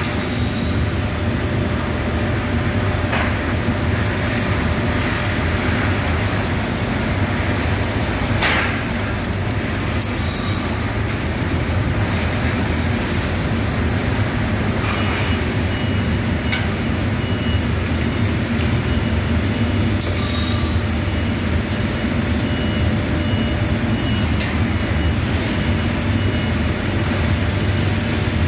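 Automatic powder coating line running: a steady, loud low machinery rumble from the spray booth and overhead conveyor, with a few short sharp hisses or clanks and a faint pulsing high beep in the second half.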